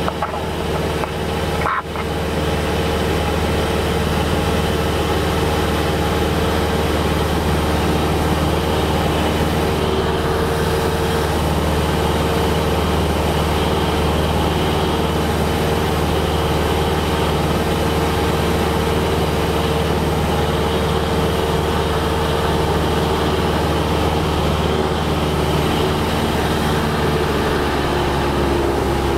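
Cessna 172's piston engine and propeller droning steadily in cruise flight, heard from inside the cabin. The engine note sags slightly near the end.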